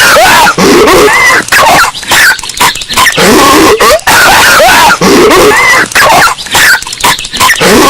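Cartoon voice of Patrick Star coughing over and over, boosted until it is heavily distorted ('earrape'). The coughs come as harsh, loud bursts with short breaks between them.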